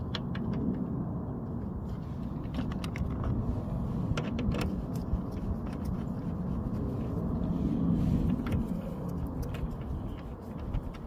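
Scattered light clicks and taps as 10 mm bolts are set by hand into a plastic headlight housing, over a steady low rumble that swells about eight seconds in.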